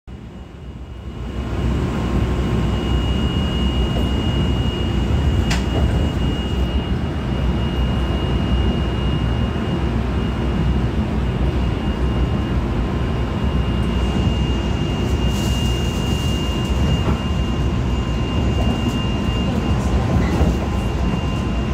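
Cabin noise of a Korail electric commuter train running at speed: a steady rumble of wheels on the track with a thin, constant high whine. It fades in over the first second or two, and there is a single click about five and a half seconds in.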